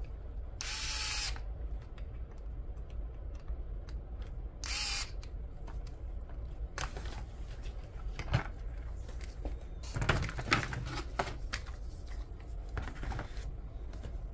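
Cordless electric screwdriver driving screws in two short runs, one about a second in and another about five seconds in, each under a second long. Scattered clicks and knocks of parts being handled follow in the second half.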